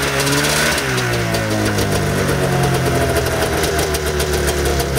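Arctic Cat snowmobile's two-stroke engine running; its speed falls off over the first second after a rev, then holds and slowly climbs again.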